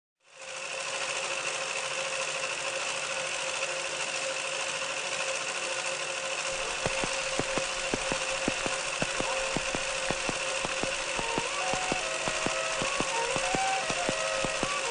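Steady machine-like hum with a high whine. About six and a half seconds in, a regular ticking of three to four clicks a second joins it, and near the end short notes step up and down above it.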